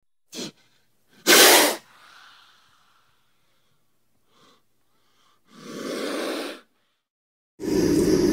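Cobra hissing in separate breathy bursts: a short one, a loud one about a second in, another about two-thirds of the way through, then a louder, fuller hiss starting near the end and running on.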